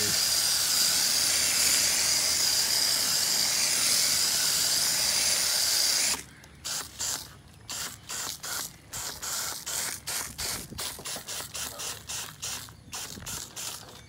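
Hose-end foam gun spraying coil cleaner into a dirty evaporator coil: a loud, steady hiss that cuts off suddenly about six seconds in. A quick, uneven run of short, sharp bursts follows, a few each second, until near the end.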